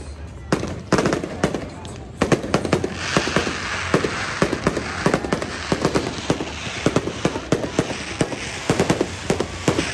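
Fireworks going off in a rapid, irregular string of sharp bangs and cracks, growing denser and louder about three seconds in.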